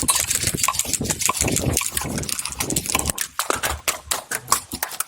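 Quick, irregular crunching footsteps of a player moving over rough outdoor ground, packed close for about three seconds and then sparser.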